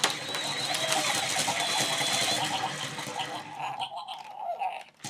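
Grrrumball remote-control toy's small electric motors whirring, with a plastic rattle, as it runs. The sound drops away briefly just before the end.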